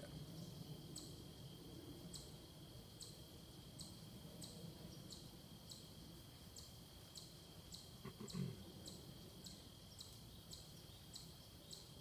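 Near-silent woodland quiet with an insect chirping in short, regular high pulses, about one a second at first and closer together later, over a thin steady high whine. About eight seconds in there is a brief low sound that falls in pitch.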